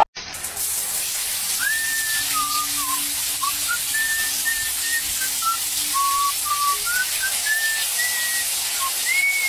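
Shower water spraying steadily onto a tiled floor and a cat, with short whistled notes that slide up and down in pitch over it.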